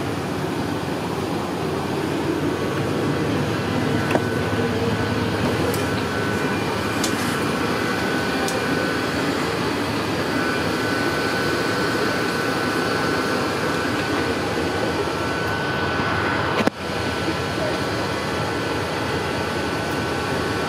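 Steady hiss of the Airbus A380 cabin's air-conditioning airflow with a faint steady high tone, and a single sharp click a few seconds before the end.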